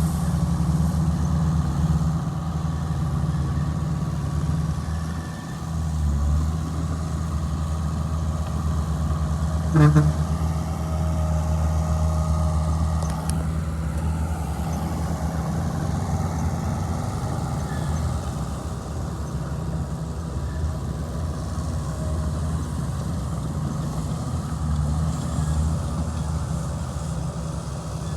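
Heavy diesel engine of a working bulldozer running steadily, with one short sharp knock about ten seconds in.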